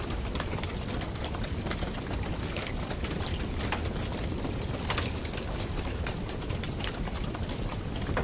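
Campfire burning steadily with a low rushing roar and frequent irregular crackles and pops of burning wood.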